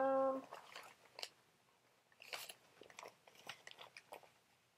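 Papers and a folder rustling and crinkling as they are pulled out of a backpack, with scattered light clicks of handling. A short hummed voice note opens it.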